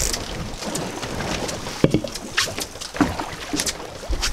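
Sea water splashing and sloshing against the boat's side as a hooked halibut is brought up to the surface alongside, with a couple of sharp knocks, about two and three seconds in.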